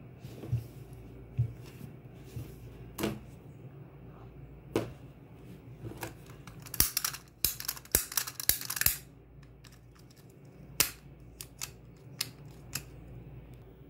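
Handling noises: scattered clicks and knocks, with a cluster of quick, scratchy noises between about seven and nine seconds in.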